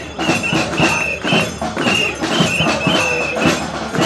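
Rally crowd making noise after a chant: rhythmic clapping, with short high whistle tones blown again and again.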